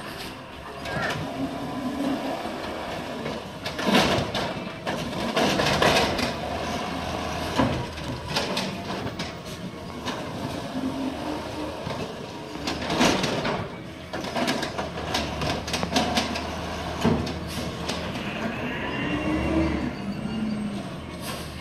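Peterbilt 320 CNG garbage truck with an Amrep body working at the curb: the engine runs steadily under repeated loud clanks and bangs of the body's equipment, with short whines from its hydraulics, one rising near the end.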